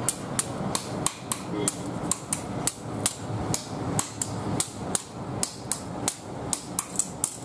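Hand hammer striking a red-hot billhook (kodavali) blade on a steel anvil in a steady run of sharp, ringing blows, about three a second.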